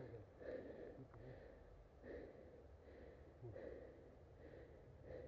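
Faint, close breathing, a breath about every second and a half.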